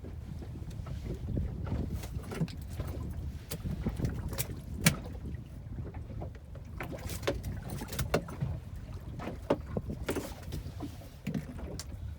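Small fishing boat at sea: a steady low rumble of wind and water, with irregular knocks and clicks from the hull and gear. The sharpest knock comes about five seconds in.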